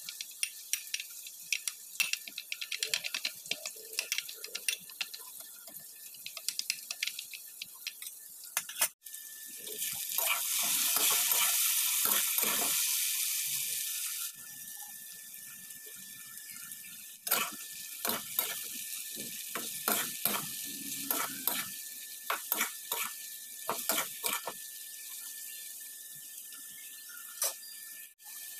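A metal spoon clinks and scrapes against a glass bowl while dry spice powder is mixed. About nine seconds in, this gives way to a loud frying sizzle in a metal karahi lasting about five seconds. The sizzle then carries on more quietly under the scrapes and knocks of a spatula stirring okra in the pan.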